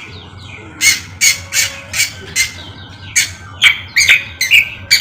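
Greater green leafbird (cucak kombo) calling loudly: a run of sharp, repeated notes at about three a second, then a second, more varied burst of notes in the last two seconds.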